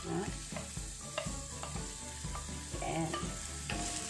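Chopped onion and garlic sizzling in a little olive oil in a stainless steel pan, stirred with a wooden spatula that knocks against the pan every second or so.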